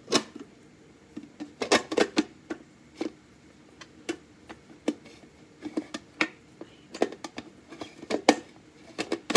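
Irregular sharp plastic clicks and knocks, a dozen or more, as the lid of a manual food chopper is fitted and turned onto its clear plastic bowl.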